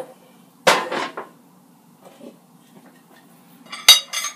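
Air fryer basket knocking and clattering as it is handled and set down: a single clack about two-thirds of a second in, then a sharper, louder clatter of several quick hits near the end.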